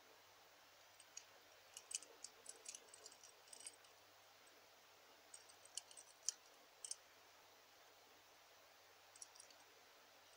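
Faint clicks and light taps of a silver pendant set with amber and stones being handled and turned between the fingers, fingernails and metal touching. The clicks come in three short clusters: a run of about two and a half seconds starting a second in, another around the middle, and a couple near the end.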